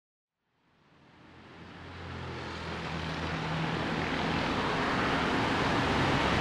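A steady rumbling noise with a low hum fades in from silence, building over the first few seconds and then holding.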